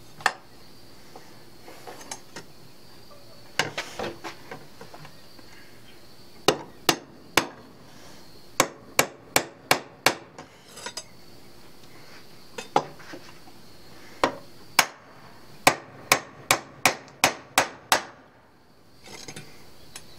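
Sharp metal taps on a 1/8-inch brass rod, driving it through the drilled hole as a pin for a knife handle. The taps come in several quick runs with pauses between.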